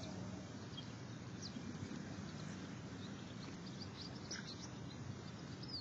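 Steady wind noise on the microphone, with short high bird chirps several times.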